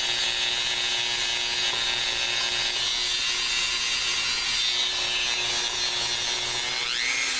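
Dremel 4200 rotary tool running steadily at a low speed setting with its small grinding bit held against the edge of a digging tool: a continuous high-pitched grinding whine. The pitch sweeps up briefly near the end.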